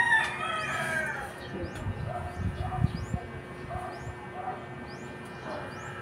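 A rooster crowing, the crow ending about a second in, followed by the rustle of a cloth drape being spread over a bed. Through it all a small bird keeps up short, high, rising chirps.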